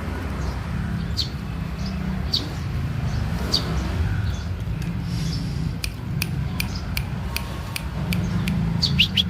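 Small birds chirping: short, high chirps about once a second, more of them near the end, over a steady low rumble. A run of sharp clicks comes in the second half.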